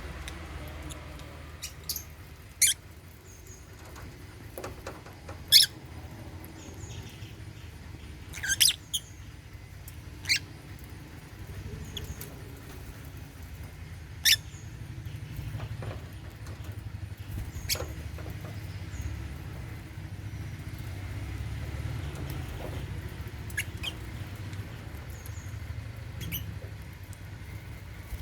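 African lovebirds giving short, sharp, high chirps, scattered every few seconds, over a low steady hum.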